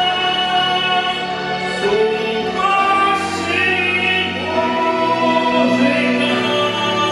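A man singing into a handheld microphone over an instrumental backing track, holding long sustained notes.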